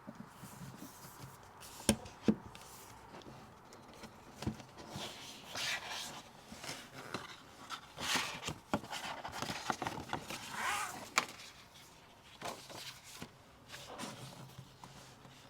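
Hands unpacking a book box: two sharp knocks about two seconds in, then repeated crinkling and rustling of packaging, loudest in the middle and fading toward the end.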